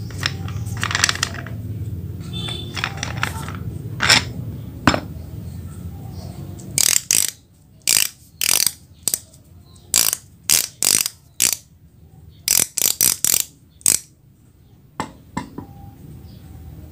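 Steel tailstock parts, a threaded screw, its cast housing and a handwheel, handled and knocked together: a run of sharp, separate metallic clicks and clinks through the middle of the stretch. A low steady hum sits under the first few seconds.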